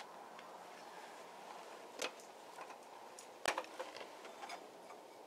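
Scattered light clicks and knocks from parts of a floor jack being handled and taken off, with one sharper knock about two-thirds of the way through, over faint room hiss.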